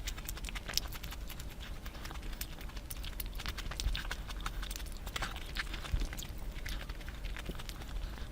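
Close-miked eating sounds: a dense, irregular run of sharp wet clicks and smacks from chewing and lips.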